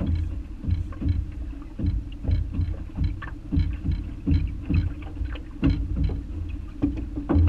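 Small waves slapping against the side of a boat hull, irregular knocks about every half second, over a steady low hum.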